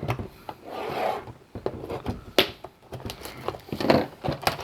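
Handling noise of a trading-card hobby box and its packs: irregular rubbing and scraping with a few light knocks and clicks.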